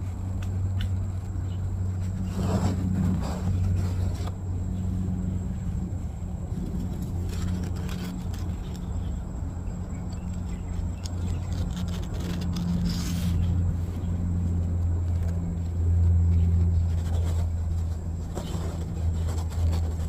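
Steady low engine hum of a motor vehicle running, swelling a little about three-quarters of the way in, with scattered brief rustling or handling noises.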